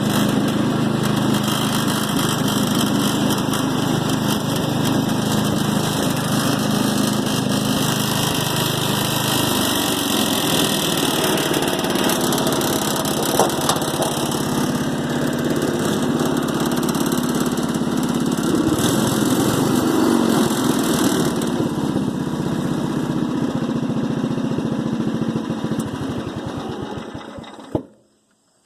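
Allis-Chalmers riding lawn mower engine running steadily. Its note changes about a third of the way through, and the sound cuts off abruptly near the end.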